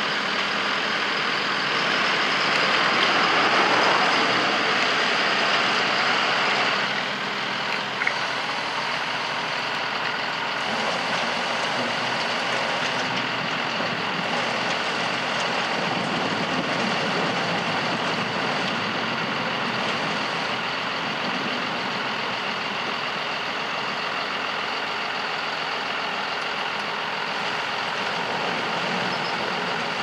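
John Deere tractor engines and a Grimme potato harvester running in the field: a tractor passes close by, loudest about four seconds in. After a sudden change a few seconds later, the steadier running of the tractor and harvester unloading potatoes into a trailer alongside.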